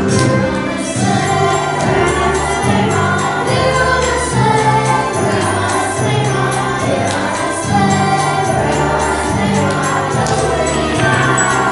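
Holiday music: a choir singing over sustained bass notes, with jingle bells.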